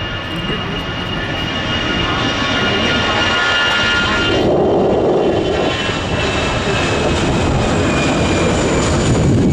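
Airbus A319's two CFM56-5B turbofan engines at takeoff thrust during the takeoff roll: a steady jet roar with a whine of high steady tones, growing louder as the airliner accelerates. The whining tones drop out about halfway through, leaving a fuller rumble.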